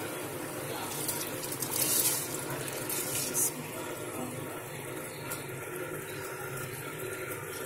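Pot of spiced water boiling steadily on a gas burner, with soaked rice tipped into it in two short splashing pours about two and three seconds in.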